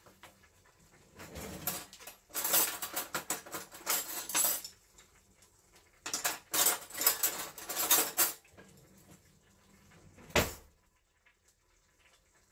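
Cutlery and chopsticks rattling and clattering as someone rummages through a kitchen utensil drawer, in two long spells, followed a couple of seconds later by a single sharp knock.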